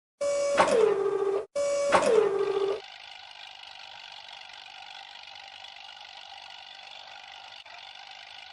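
Sound effects for a cartoon wheeled bulldozer. The same pitched call plays twice, each holding a note and then sliding down to a lower one. A steady, quieter machine hum follows for the rest of the time.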